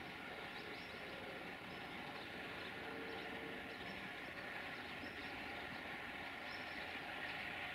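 Electroputere 060-DA (LDE2100) diesel-electric locomotive with its Sulzer engine running in a steady hum as it creeps slowly along the platform. Birds chirp briefly now and then over it.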